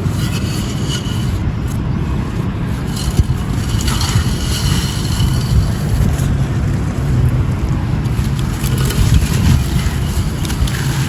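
Gritty light grey concrete claypot crumbling: a continuous dry, gritty scraping and crunching with small crackles throughout.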